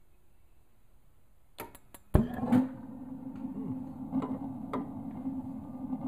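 Atwood RV water heater's propane burner lighting: a few quick spark-igniter clicks, then the flame catches with a sudden whoomp about two seconds in and settles into a steady burner roar with a low hum.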